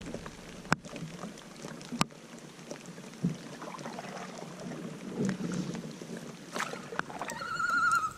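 Canoe being paddled on a lake: paddle strokes swishing and water lapping at the hull, with two sharp knocks of the paddle against the canoe in the first two seconds. Near the end a wavering, high-pitched tone comes in.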